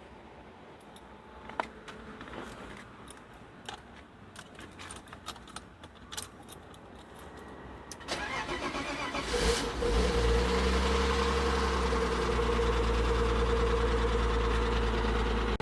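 Light clicks and rattles for several seconds, then the 1995 BMW 325i's 2.5-litre straight-six cranks for about a second and a half, catches and settles into a steady idle with a steady high tone over the engine note: the running noise the owner calls very bad.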